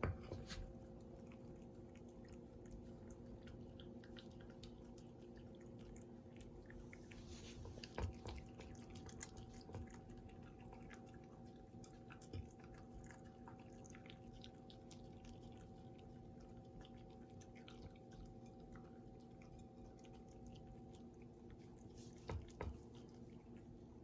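A dog chewing avocado: faint, wet smacking clicks scattered throughout, with a couple of louder knocks about a third of the way in and near the end, over a steady low hum.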